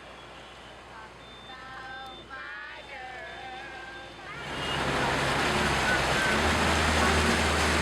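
A vehicle driving through deep floodwater: faint voices at first, then from about four seconds in a loud, steady rush of water against the vehicle over a low engine hum.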